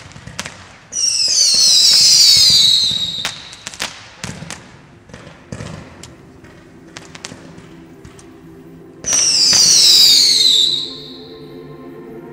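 WECO Ultimate 88-shot fan cake firing: sharp cracks and pops from its shots, and twice (about a second in and again about nine seconds in) a loud whistling shriek lasting about two seconds that falls in pitch. Background music comes in faintly about halfway through.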